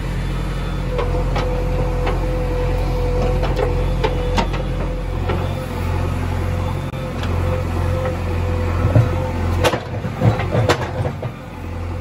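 JCB 3DX backhoe loader's diesel engine running steadily, with a steady whine over it and scattered knocks from the working bucket. Near the end comes a run of louder thuds and clanks as the bucket dumps its load of buffalo dung into the tractor trolley.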